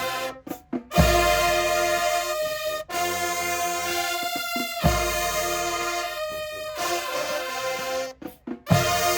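High school marching band's brass section playing loud held chords in a repeating phrase. The band cuts off briefly about half a second in and again near the end, and each new phrase comes in on a heavy bass-drum hit.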